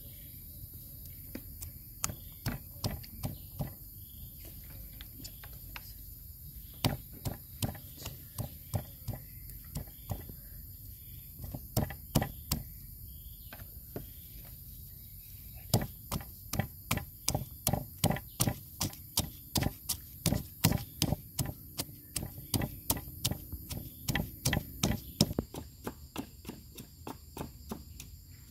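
Knife chopping ingredients on a wooden cutting board: runs of sharp knocks at about two to three a second, in short spells, coming faster and more steadily in the second half.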